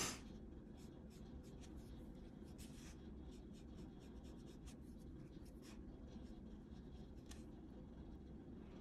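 Faint, scattered scratches and light taps of coloured pencils and paper being handled, over a low steady room hum.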